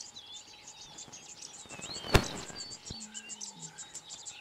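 Many small birds chirping and twittering across open grassland, with a sharp click a little over two seconds in.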